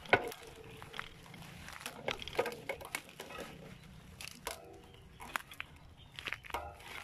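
Footsteps crunching through dry leaves, twigs and undergrowth, with foliage brushing past: irregular crackles and snaps.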